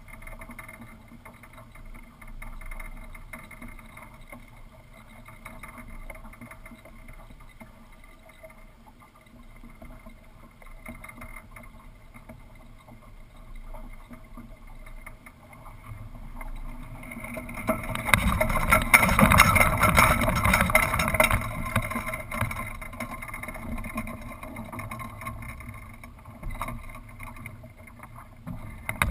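Low, steady rush of wind and water heard from a camera mounted high on a small sailboat's mast. About 17 seconds in it swells into a loud, rattling rush for several seconds, then settles back, as the sail shifts across when the boat changes tack.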